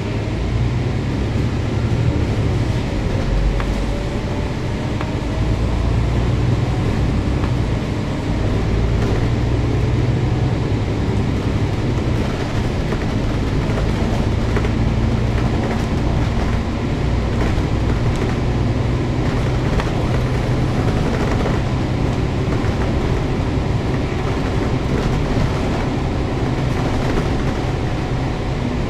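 Volvo B9TL double-decker bus's diesel engine and drivetrain running under way, heard from inside the bus: a steady low drone, with a whine rising in pitch about two seconds in as the bus picks up speed.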